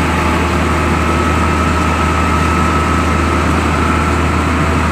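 Engine of a sewer-cleaning truck running steadily with a continuous low drone, powering the hose being worked down a blocked manhole.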